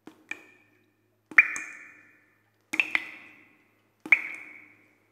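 Title-sequence music made of bright pinging notes, each starting with a click and ringing out, somewhat like water drops. There are about five strikes, three of them loud, spaced roughly a second and a half apart.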